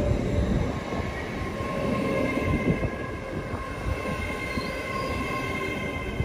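Great Western Railway Hitachi intercity train (Class 80x IET) passing close along the platform: steady rumble of wheels on rail with a steady whine running through it.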